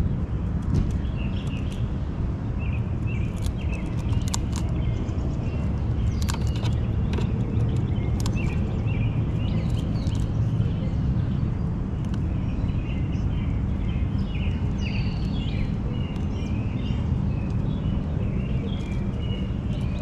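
Birds chirping and calling outdoors, many short calls scattered throughout, over a steady low rumble.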